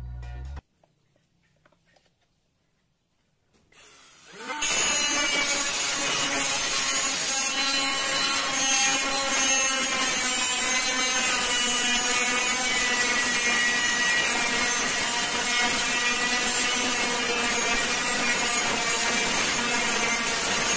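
Cordless angle grinder spinning up about four seconds in and cutting through a metal pipe with its abrasive disc: a steady whine with grinding noise. The first few seconds are near silent.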